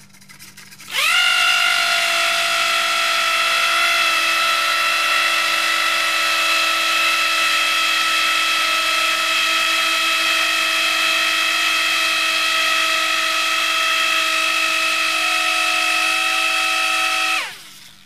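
Hover:bit hovercraft's small electric motor and propeller spinning up under throttle from a micro:bit remote, giving a loud, steady whine. It rises sharply in pitch about a second in, holds a nearly even speed, then cuts off and winds down near the end.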